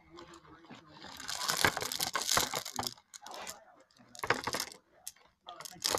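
Small rocks poured from a mesh bag into a metal bowl, clattering against the metal and each other. A dense clatter starts about a second in and lasts about two seconds, followed by two short clatters near the end.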